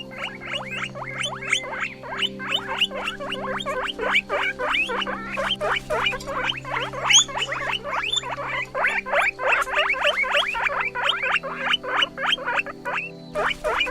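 Guinea pig squeaking in a fast, continuous run of short, high, gliding squeaks, several a second.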